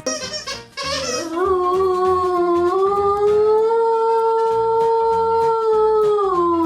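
A dog howling: one long howl that rises slightly about three seconds in, holds steady, and falls away in pitch at the end, over background music with a steady beat.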